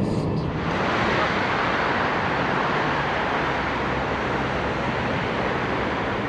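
Steady rushing noise with no distinct tones, which begins as background music fades out in the first second.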